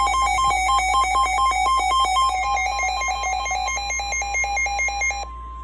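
Electronic alert beeps, alternating between two pitches about four times a second, sounding over the steady 1050 Hz warning alarm tone of NOAA Weather Radio. About five seconds in the beeping cuts off, leaving the alarm tone alone at a lower level, which signals a warning about to be read.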